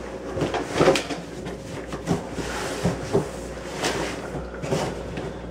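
Things being handled and shifted by hand: a scatter of light knocks and clatters, several in a row, over a faint steady hum.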